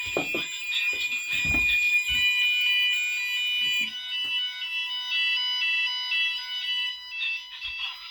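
GENT Vigilon fire alarm sounders sounding in alarm, with steady piercing tones. About four seconds in, the steady high tone gives way to a stepping pattern of changing tones. A few dull knocks come in the first two seconds.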